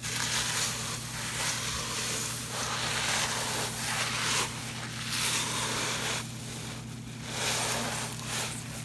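Rice Krispies cereal rustling and crackling in a pot as it is stirred into melted marshmallow, in uneven swells of hiss a second or two long, over a steady low hum.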